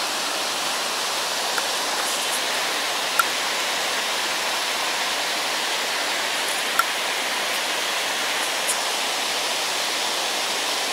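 Small waterfall on a river: water falling over a low step of rock, a steady, even rush, with a few faint clicks.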